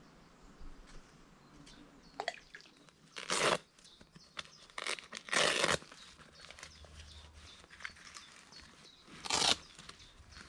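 Velcro straps on a fishing rod holdall being ripped open: three loud rips, with rustling and clicking of the bag and rods in between.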